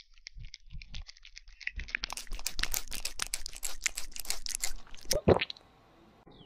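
A baby rabbit nibbling honeycomb close to the microphone: a run of rapid small crackles and crunches that stops suddenly just before the end.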